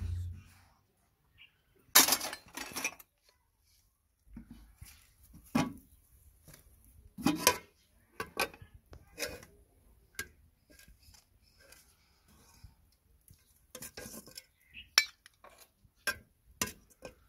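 Stainless-steel utensils clinking and knocking: a ladle against a steel pot and a small steel bowl as potato curry is served out. A series of separate clanks, the loudest about two seconds in, with others scattered through.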